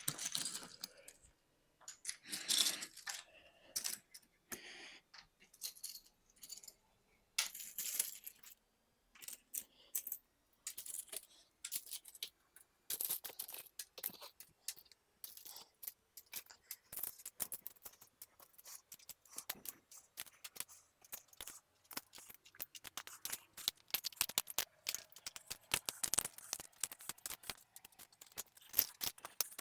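Small plastic Lego bricks clicking and rattling as they are picked out and pressed together: many light, irregular clicks, coming thicker in the second half.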